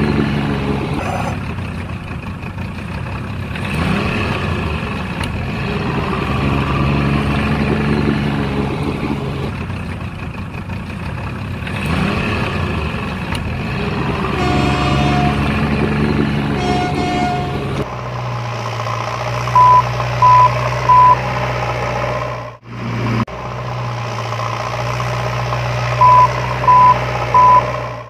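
Truck engine running, with two horn toots about two-thirds of the way in; later the sound settles into a steady low hum broken by two sets of three short reversing beeps.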